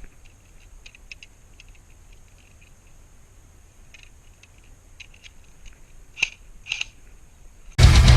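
A few faint, scattered clicks and ticks, two slightly louder ones about six and seven seconds in. Then, near the end, loud heavy-metal music with electric guitars cuts in suddenly.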